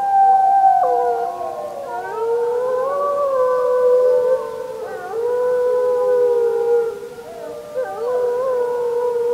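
A chorus of wolves howling: several long howls at different pitches overlap, each held and sliding up or down in places.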